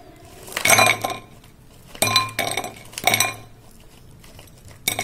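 Crisp fried kothimbir vadi (coriander and gram-flour fritters) dropped one after another onto a glass plate: four short clattering clinks about a second apart, the glass ringing briefly with each. The hard clatter shows how crisp the fried vadis are.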